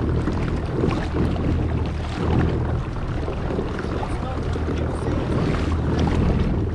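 A kayak under way: water rushing and splashing along the hull, with wind on the microphone and a steady low hum.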